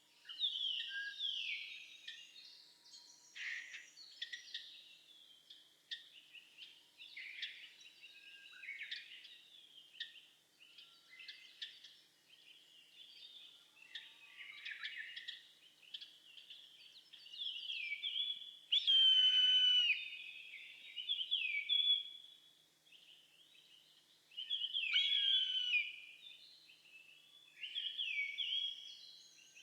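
Many overlapping whistled bird songs and calls, with loud, drawn-out, falling whistled calls about 19 seconds in and again around 25 seconds: the mewing call of an Eastern Buzzard.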